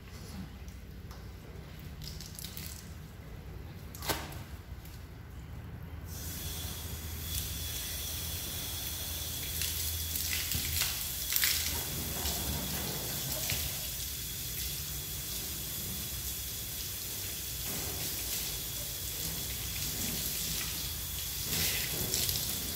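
Garden hose spraying a steady stream of water onto a car's bodywork and wheel, rinsing off dishwashing-liquid suds, starting about six seconds in. Before that there is a low hum and one sharp knock.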